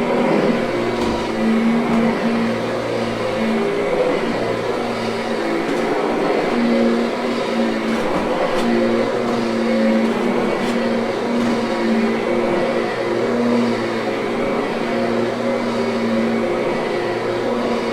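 Kirby upright vacuum cleaner running as it is pushed over a carpet to lift dog hair, its motor hum dipping and rising slightly in pitch with the repeated passes.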